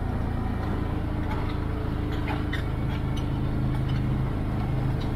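Can-Am side-by-side UTV engine running steadily while driving, heard from inside its enclosed cab, with a few light clicks and rattles.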